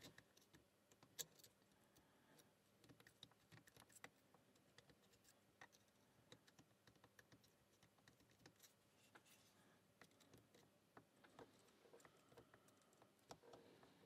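Faint, irregular clicks and light scratches of a lock pick working the rotating wafers inside a Fichet Bauche M2 safe lock.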